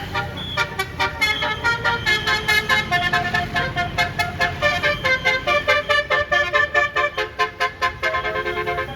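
Bus's Basuri telolet multi-tone air horn playing a fast melody of short notes, with the bus's engine running underneath.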